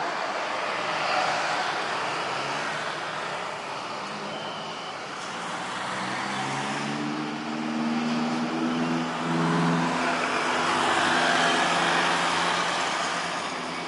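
Airbus A320 jet engines running as the airliner rolls out along the runway after landing: a steady rush with a low hum of several steady tones through the middle, growing louder over the second half.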